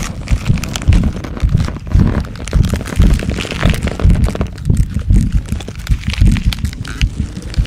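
Body-growth transformation sound effect: a run of deep thuds and rumbles, about two a second, with cracking and crackling over them.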